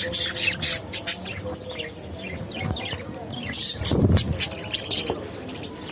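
Budgerigars chirping and chattering, with many quick sharp clicks from their beaks working at seed. A low thump about four seconds in.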